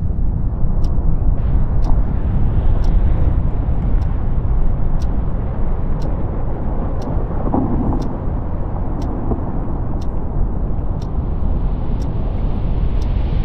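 Glacier calving: a deep, continuous rumble as a huge section of the ice face breaks apart and collapses.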